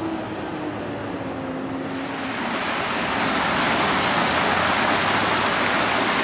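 A vehicle engine hums steadily, dropping slightly in pitch. About two seconds in it gives way to a shallow, rocky mountain creek rushing over stones, a steady, louder hiss of flowing water.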